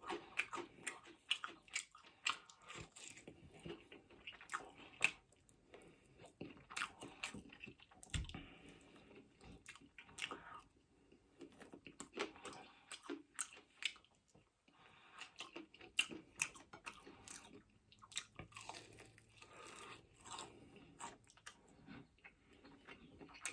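Close-up chewing and biting of crispy salt and chilli chicken wings: many small, irregular crunches and mouth clicks as the meat is pulled off the bone and chewed.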